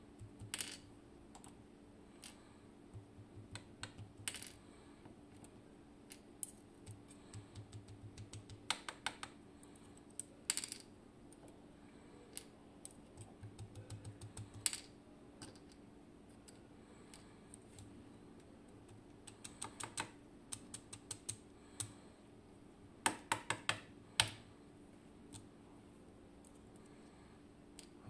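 Small metallic clicks and taps of steel tweezers working pins out of a lock cylinder and setting the small brass pins down on a wooden tray. They come irregularly, some in quick clusters, with the loudest group near the end.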